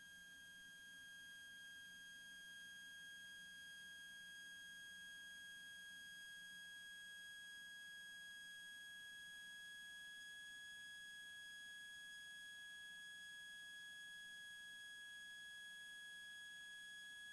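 Faint, steady high-pitched electrical whine in the aircraft's intercom audio feed, one unchanging tone with overtones above it; no engine or voices come through.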